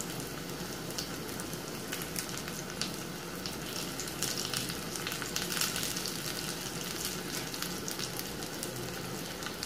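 Coconut oil sizzling and crackling in a small steel pan as shallots, dried red chillies and curry leaves fry for a mustard-seed tempering (tadka). It is a steady frying hiss with many small pops throughout.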